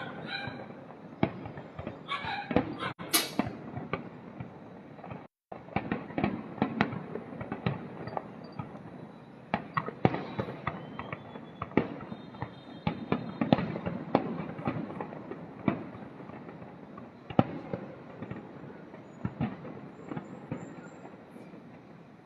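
Fireworks display: a continuous barrage of bangs and booms from aerial shells over a steady rumble, with a brief cut-out about five seconds in.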